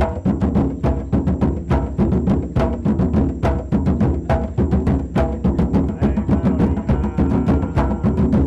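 Several barrel-shaped hand drums played together in a fast, steady rhythm, accompanying a dance.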